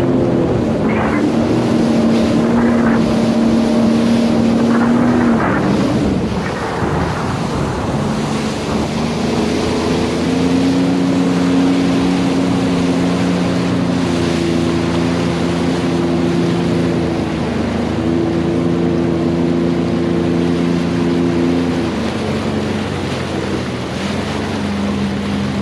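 Sea-Doo GTR 230 personal watercraft running underway, its supercharged three-cylinder engine dipping in pitch about six seconds in, then climbing back and shifting up and down several more times as the throttle changes. Hull spray hiss and wind on the microphone run under it.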